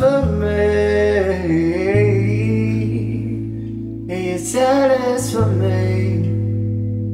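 Afrikaans worship song played by a band of acoustic guitar, drum kit, electric bass and keyboard, with a woman and a man singing. A long sung line bends in pitch, then after a pause another phrase comes in about four seconds in, over steady bass notes.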